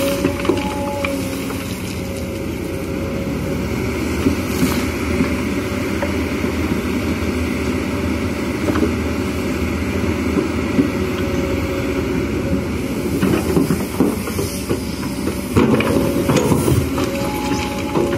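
Kobelco SK210HD hydraulic excavator working, its diesel engine running steadily under load as the bucket digs into gravelly earth. Scattered knocks and clatter of stones, thicker in the last few seconds.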